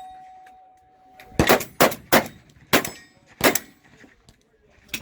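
Gunshots with a steel target ringing: a steady metallic ring fades away over the first second or so, then five shots come in quick, uneven succession over about two seconds.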